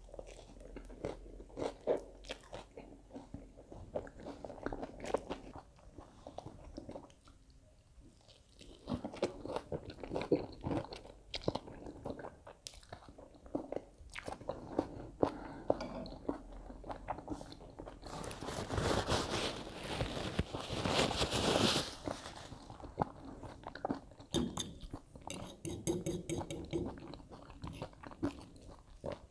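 A person chewing and crunching a mouthful of crisp lettuce salad up close, with many small crackles and wet mouth sounds. About 18 seconds in, a louder, rougher noise lasts for about four seconds.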